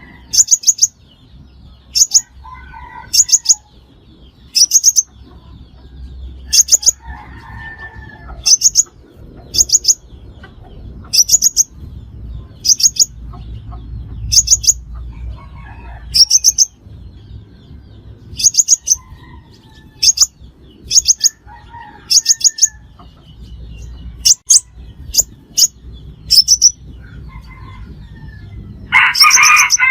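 Sunbird giving short, high-pitched chirping calls, each a quick run of two to four notes, repeated every second or two. Fainter, lower bird calls come in between, and a louder, lower call comes near the end.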